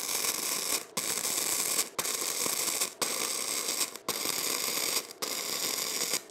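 Gasless flux-core wire-feed welding arc from a WR0-250 welder, crackling and hissing steadily as a full-power weld bead is laid, with brief breaks about once a second.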